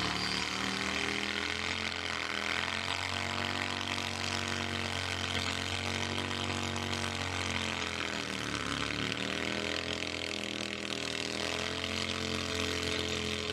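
A hot saw, a chainsaw driven by a large custom engine, running at high revs as its bar cuts down through a log. The engine pitch sags twice under load and picks back up.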